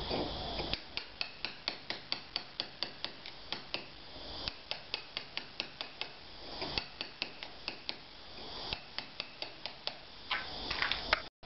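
Hammer striking a small cold chisel, chipping old lime mortar out of a brick joint: a steady run of sharp taps, about three or four a second, with a few short pauses.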